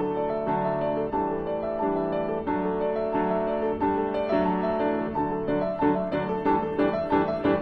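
Background piano music, a steady run of gentle notes.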